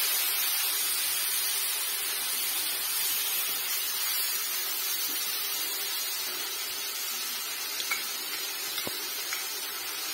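Ground masala paste of ginger, garlic, mustard and cumin sizzling with onions in hot oil in a steel wok: a steady hiss. A few light clicks of the metal spatula against the pan come near the end.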